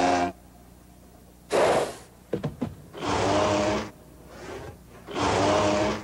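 Sound-effect calls for an animated Triceratops: four loud rasping calls, each under a second long, spaced about a second and a half apart, with a few short clicks after the second and a fainter call after the third.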